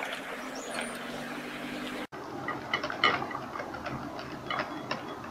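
A utensil stirring waffle batter in a glass bowl, mixing milk into the flour. From about two seconds in it gives light, irregular clicks and taps against the glass.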